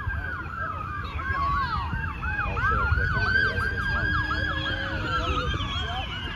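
Emergency vehicle sirens: a slow wail that rises and falls, sounding together with a fast yelp that warbles about four times a second, over a low rumble.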